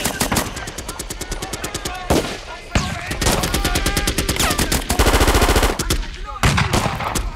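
Rapid automatic gunfire in long, continuous bursts, with short breaks about two and a half and six seconds in.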